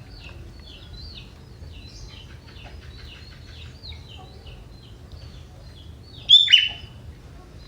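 Young wild sooty-headed bulbul singing a fast run of short, high chirps in a prinia-like pattern, with one much louder burst of falling notes about six seconds in.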